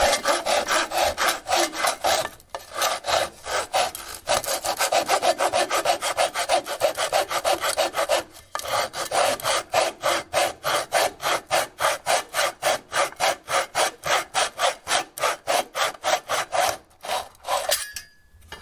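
A flush-cut pull saw cuts through the bottom of a wooden door jamb in quick, even strokes, its blade riding flat on a tile as a height guide. It pauses briefly twice and stops about a second and a half before the end.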